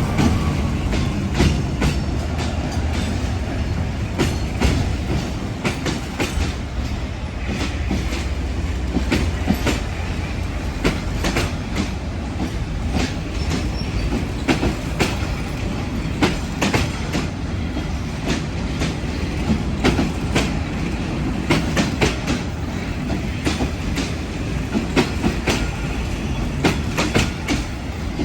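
Train rolling past on the rails, its wheels clacking again and again over the rail joints beneath a steady rumble.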